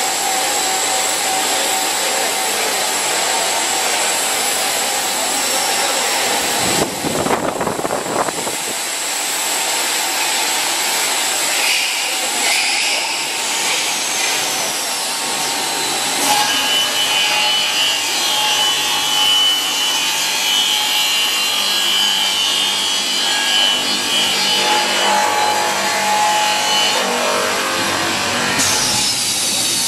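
A PVC foam board extrusion line running: steady, loud machine noise with a steady high whine through it, and a higher squeal joining in for a stretch in the second half.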